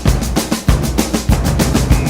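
Background music with a fast, driving drum beat: snare and bass drum hits several times a second.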